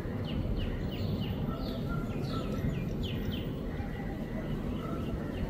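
Birds calling in short, quick falling chirps, a few a second and busiest in the middle, over a steady low rumble of outdoor background noise.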